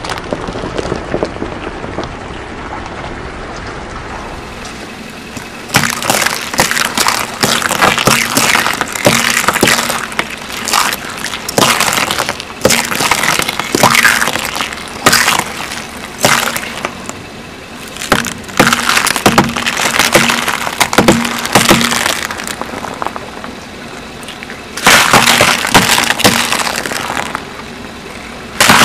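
Crunchy objects cracking and breaking as a car tyre rolls over and crushes them. After a quieter opening few seconds, dense crackling comes in several bursts with short lulls between.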